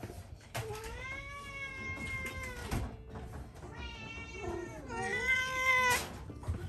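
Domestic cats meowing: a long, drawn-out meow, a few shorter meows, then a louder meow near the end.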